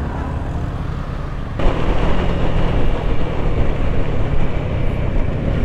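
Motorcycle engine running on the move, with a rush of wind noise over the helmet camera that gets louder about a second and a half in.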